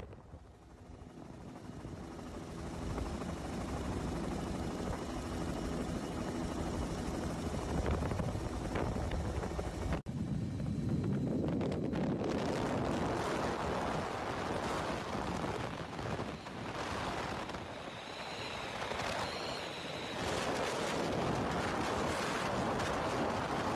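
Helicopter engine and rotor running steadily, heard from inside the aircraft as a hum of evenly spaced tones. About ten seconds in there is a sudden cut to a noisier rushing of rotor and wind, with a wavering high whine for a moment near the end.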